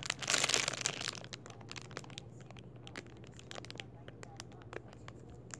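Clear plastic packaging crinkling as a foam cake squishy is squeezed inside it. The rustle is loudest in the first second, then thins to scattered small crackles.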